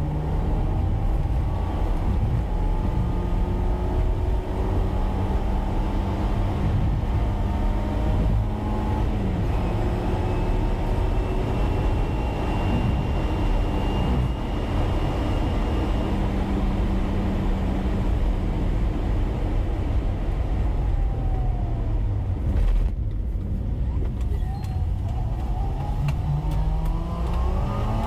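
Car driving on a highway, heard from inside the cabin: a steady engine hum over road rumble. The engine note drops about nine seconds in and rises again near the end.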